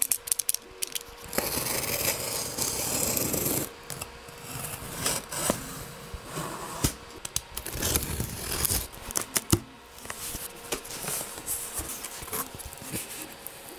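Snap-off utility knife slicing through the packing tape on a cardboard box, with one long even cut starting about a second and a half in and lasting about two seconds. Scattered scrapes, clicks and cardboard rubbing follow as the flaps are worked open.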